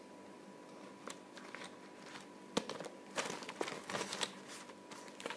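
Rustling and crinkling as art supplies are handled, with a scatter of light clicks and one sharp click about two and a half seconds in.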